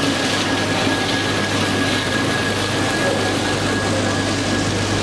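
A fried fish skin packing line running steadily: its vibratory feeder and bucket elevator give a constant low hum with a thin, steady high whine over a rattling machine noise.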